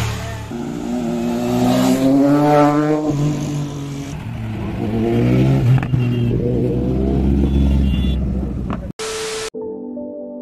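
Motorcycle engine accelerating on the road, its pitch climbing and dropping back twice as it goes up through the gears, over steady road and wind noise. In the last second or so it cuts to soft ambient music.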